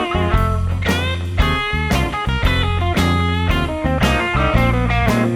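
Background music: electric-guitar rock with a steady bass line and a regular beat, the guitar notes bending in pitch.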